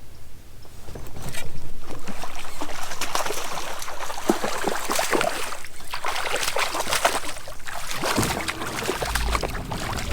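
Irregular splashing and sloshing of water with crackling and rustling, starting about a second in.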